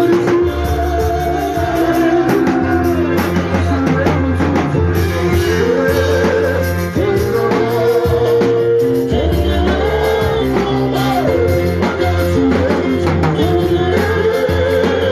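Band music with drums, bass and guitar, and a singing voice holding and bending long notes.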